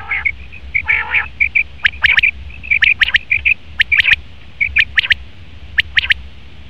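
Male common quail calling: sharp, quick notes in short runs of two or three, repeated about five times, with lower, buzzier calls in the first second.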